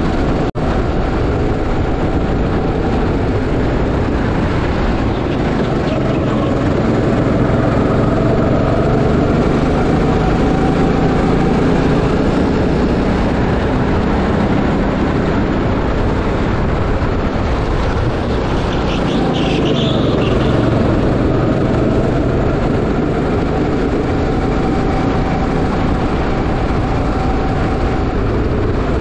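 Go-kart engine running on the throttle with wind rushing past, the engine pitch rising and falling gently with speed through the corners and down the straight.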